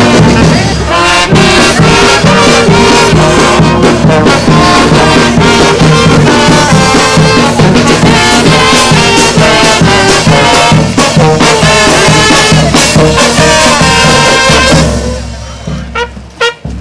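A street brass band plays, with trumpets and trombones over bass drum and snare drum. The music drops away shortly before the end.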